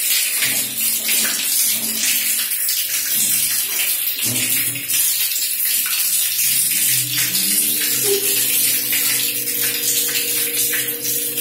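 Water from a wall tap pouring in a steady stream onto a wet dog and a tiled floor, a continuous splashing hiss. About seven seconds in, a low steady hum joins the splashing.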